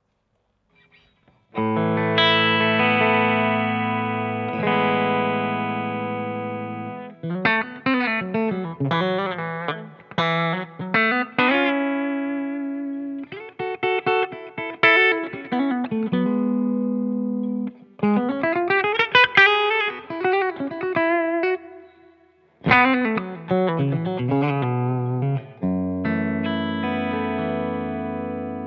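UMEDA UST QM24 electric guitar played through a clean tone on its bridge humbucker: two ringing chords, then picked arpeggios and single-note runs, ending on a held chord that rings out.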